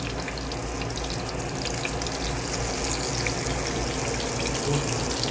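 Chapli kebabs sizzling and crackling in shallow oil on a hot tawa (flat iron griddle), a steady hiss with many fine pops.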